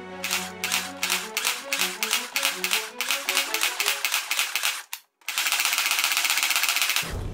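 Toy M4-style gun firing a rapid rattle of shots, about five a second, with a stepping melody underneath. It cuts out briefly about five seconds in, then comes back as a denser, continuous rattle.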